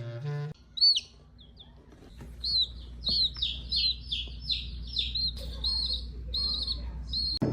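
A small bird chirping: one high note about a second in, then a quick run of short, high chirps, about three a second.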